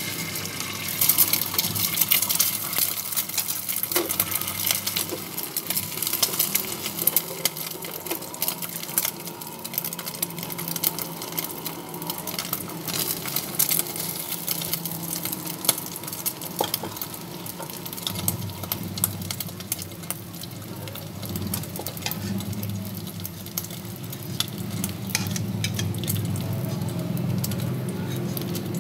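Beaten egg frying in hot cooking oil: a dense crackling sizzle that starts as the egg hits the oil, loudest in the first few seconds, then settles to a steady sizzle.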